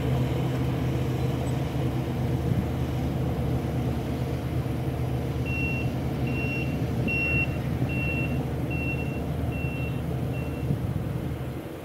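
Heavy equipment's reversing alarm beeping seven times, about one beep a second, over a steady engine drone.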